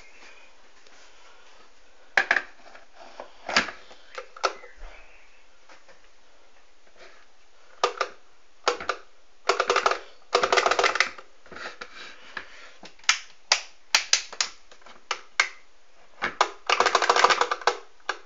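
Sharp clicks and taps from a hand handling a stainless-steel electric kettle, with longer bursts of rapid rattling clicks about ten seconds in and near the end.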